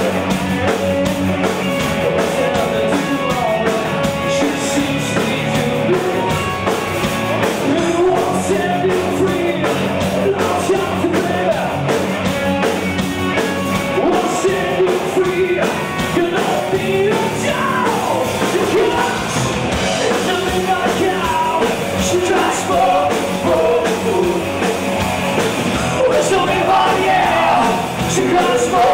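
A rock band playing live with a singer, steady and loud.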